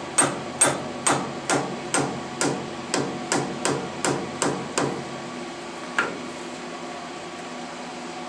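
A hammer tapping a milling vise on the mill table to nudge it into alignment: about a dozen light, regular taps, roughly two a second, then a single tap a second later.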